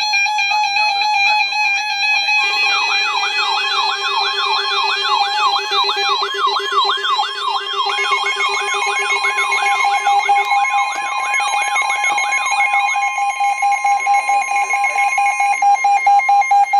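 Weather radio receivers sounding their alert alarms together as several overlapping electronic tones. A warbling beep tone runs throughout. About two and a half seconds in, a fast rising-and-falling siren-like sweep of about three cycles a second and a low pulsing buzz join it. Both stop partway through, leaving the warble and a steady single tone near the end.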